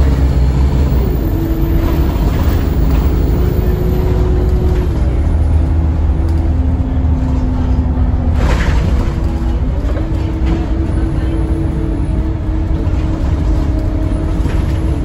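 Inside an ADL Enviro200 MMC single-deck bus on the move: a steady low engine drone with a held tone above it that drops in pitch about a second in and again about five seconds in, as the Allison T2100 automatic gearbox changes gear. A brief hiss comes about eight and a half seconds in, and the tone steps back up about ten seconds in.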